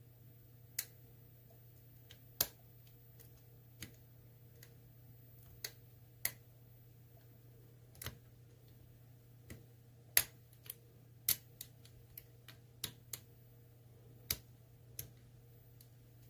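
Lock pick and tension wrench working the pins of an ASSA Twin Combi cylinder: irregular sharp clicks and ticks, some much louder than others, as the pick moves over the spool pins.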